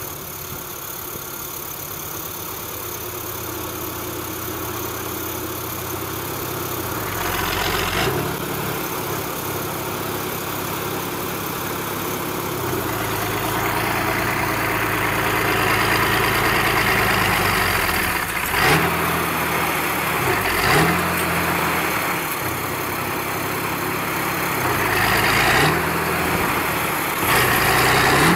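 Diesel engine of a Kirovets K-700-type articulated tractor stuck in deep snow, running and revving up and down several times as it works under load to break free. The engine gets louder in the second half.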